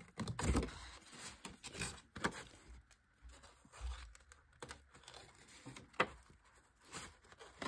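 Stiff kraft cardstock being handled by hand as a tab is worked through a slot and folded: scattered rustles, scrapes and light clicks of card, the loudest just after the start, about two seconds in and about six seconds in.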